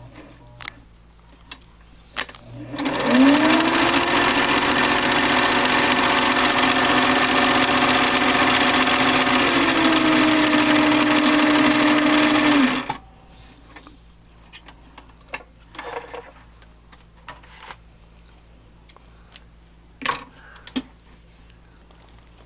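Singer Stylist 457 sewing machine starting about three seconds in, rising quickly to a steady running speed for about ten seconds, easing a little slower near the end and then stopping suddenly; it is set for very short stitches. Light clicks and handling sounds before and after.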